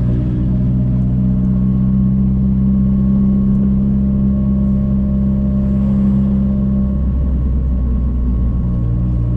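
Nissan S14's engine droning steadily as the car drives at a constant speed, with the engine note changing about seven seconds in.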